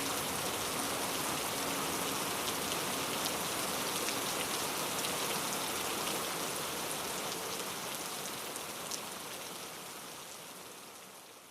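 Steady rain falling, with the ticks of single drops heard through it, fading out over the last few seconds.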